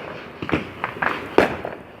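Fireworks going off: a handful of sharp bangs and pops at uneven spacing, the loudest about a second and a half in.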